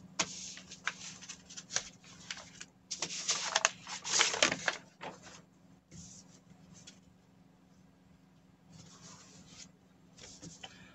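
Paper pattern sheets and stretch knit fabric rustling and sliding across a table as they are handled, in a series of irregular bursts. The loudest burst comes about four seconds in, and there is a quieter lull near three-quarters of the way through.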